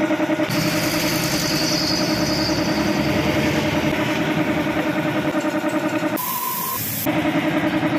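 A small engine idling steadily in the background with a regular pulsing beat. About six seconds in it drops out for about a second while a short high tone sounds, then it resumes.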